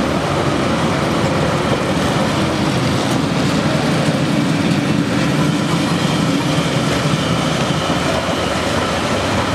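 Vintage tram ACEGAT 447 running past on wet street track, a steady rumble of its wheels and running gear on the rails.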